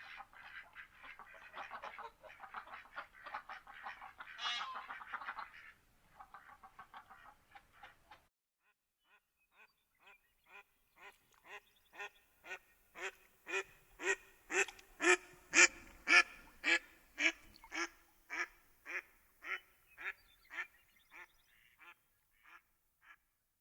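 Mallard ducks quacking: a dense chatter of many overlapping quacks for the first several seconds, then, after a short pause, a long run of single evenly spaced quacks, about two a second, that grows louder to a peak past the middle and fades away near the end.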